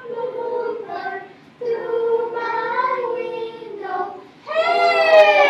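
A class of young children singing together, in short sung phrases, the last one near the end sliding down in pitch.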